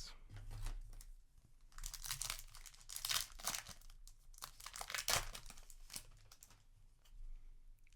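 Foil Yu-Gi-Oh! booster pack wrapper crinkling and tearing open, in several bursts of rustling about two, three and five seconds in, with small clicks between.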